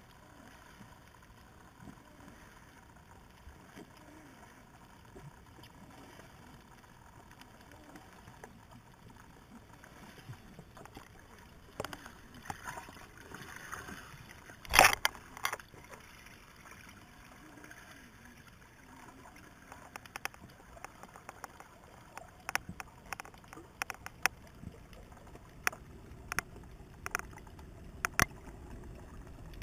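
Underwater ambience picked up by a submerged camera: a faint steady hiss with scattered sharp clicks. There is one short loud burst about halfway through, and the clicks come thicker in the last third.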